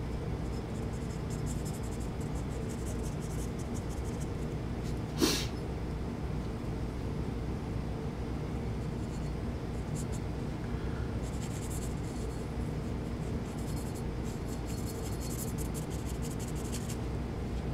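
Felt-tip gun blue touch-up pen rubbing and scratching faintly along the worn edges of a Kel-Tec P3AT steel pistol slide, touching up the bluing, over a steady low hum. One brief sharp noise stands out about five seconds in.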